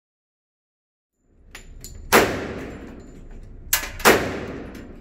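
Handgun shots at an indoor shooting range, each ringing on in the hall. After about a second of silence and a few small clicks, one shot comes about two seconds in and two more follow close together near four seconds.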